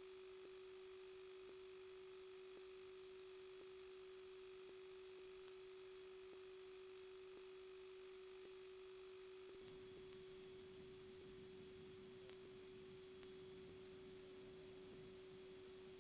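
A steady, low electronic tone with a faint high whine above it, with faint ticks about once a second in the first half. A low rumbling noise joins it from about ten seconds in.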